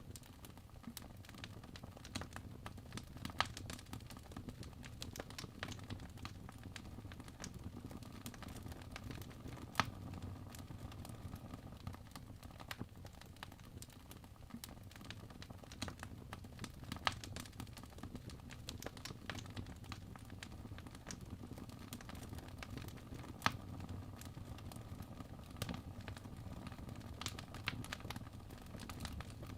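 Wood fire in a fireplace burning with a low steady rumble and constant small crackles. Louder pops come every six or seven seconds as the logs snap.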